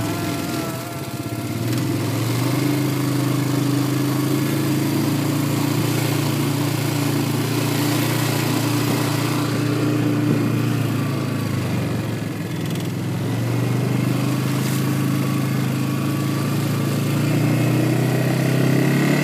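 Quad bike (ATV) engine running steadily under way. Its note drops about a second in and again around twelve seconds in, then climbs back up as the throttle opens, with wind noise over it.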